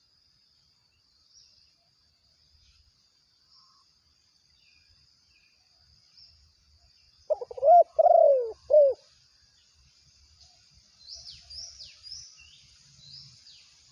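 A dove or pigeon cooing: one loud call of three falling coos about halfway through, followed near the end by several quick high chirps that sweep downward, over a faint steady high-pitched tone.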